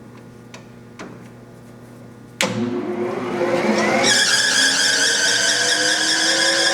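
Clausing 1030 lathe started in a high speed range: after a few light clicks, the motor comes on suddenly about two and a half seconds in. The spindle drive's whine then climbs steadily in pitch as it spins up, with a rising hiss of belt and gear noise. The speaker remarks that the belt wants tightening.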